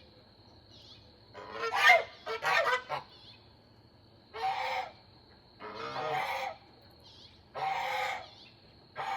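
Backyard waterfowl calling: a series of about six loud honking calls, two close together about a second and a half in, then one roughly every one and a half seconds.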